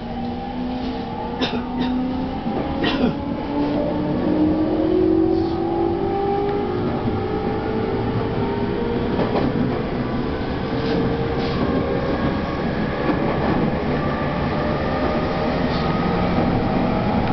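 Tokyo Waterfront Area Rapid Transit 70-000 series electric train, in its original pre-renewal form, accelerating away from a station, heard from inside the car. The traction motors' whine rises steadily in pitch over the rumble of the wheels, with a few sharp clacks from the wheels on the track.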